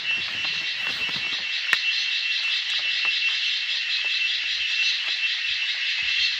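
A dense chorus of calling frogs or insects: a steady, high, rapidly pulsing trill, with one sharp click just under two seconds in.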